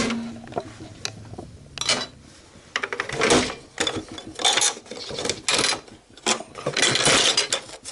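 Plastic keys and mechanism parts of a keyboard organ clicking and rattling in irregular bursts as one key is worked loose from its mount.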